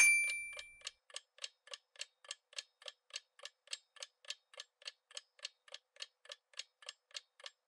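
Quiz countdown-timer sound effect. It opens with a bright chime that rings out for about a second, then a clock ticks steadily at about three and a half ticks a second.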